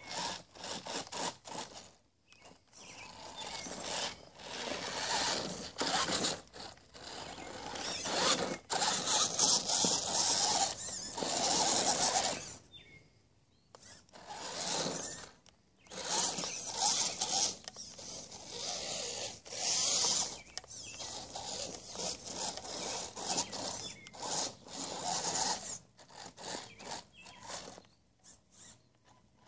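Electric motor and gear train of a 1/10-scale RC rock crawler whirring in bursts as it is throttled on and off while crawling over a dirt mound. The bursts last from about a second to several seconds, with short pauses between them.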